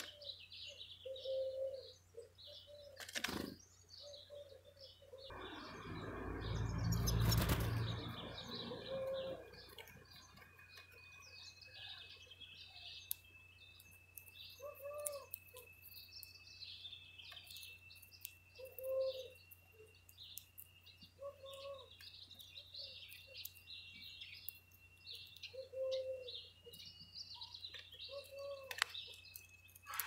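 Wild birds at a feeder: small birds chirping and twittering throughout, over low cooing calls that repeat every few seconds. About five seconds in comes a loud burst of wing flapping lasting some three seconds, and from then on a thin, steady high whistle runs beneath the chirps.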